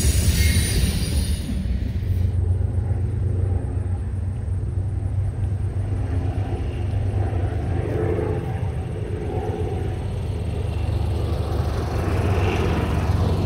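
Freight train cars rolling on the rails for the first two seconds or so, then a steady low rumble.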